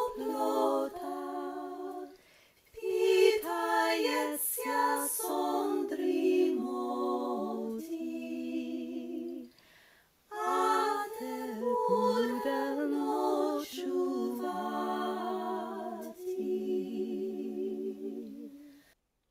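A woman singing a traditional Ukrainian lullaby unaccompanied, in three phrases with two short pauses for breath. The last held notes die away near the end.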